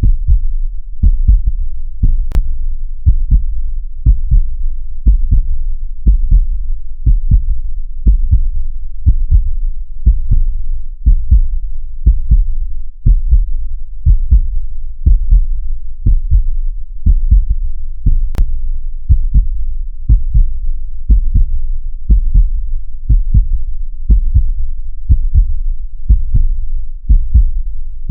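Heartbeat: a steady double thump, lub-dub, repeating evenly about once a second, low in pitch. A faint click is heard twice.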